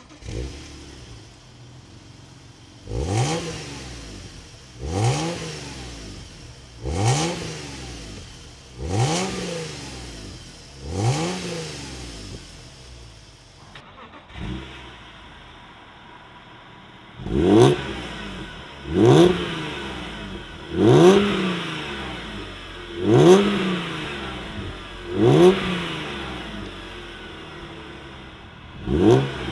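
BMW E36 M3 inline-six blipped from idle, one rev about every two seconds. The first five revs come through the standard exhaust. After a cut, six louder, sharper revs come through a Milltek stainless steel cat-back performance exhaust.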